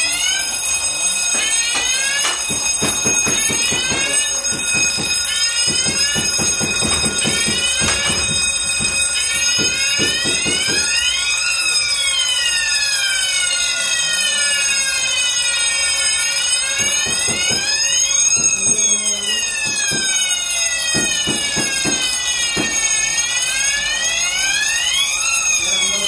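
Fire alarm system sounding on test: an electric fire alarm bell ringing continuously, together with electronic sounders sweeping up and down in pitch, their sweeps overlapping. The sweeps are short and rising at first, then become longer rising-and-falling whoops.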